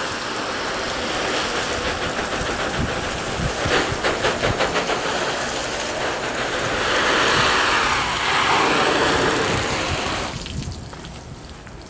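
Water from a garden hose nozzle on its shower setting spraying onto a Tyvek tarp, a steady rain-like hiss and patter. It eases off about ten and a half seconds in.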